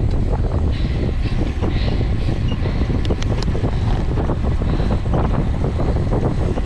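Steady, heavy wind rumble on a bicycle-mounted camera's microphone while riding at race speed, with two brief ticks about three seconds in.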